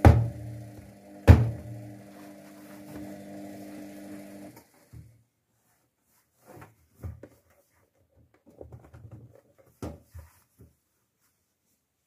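Luxor WM 1042 washing machine in its Cotton 40°C wash: the motor hums steadily as the drum turns, with two heavy thumps near the start. About four and a half seconds in the motor stops, leaving only a few scattered soft thuds.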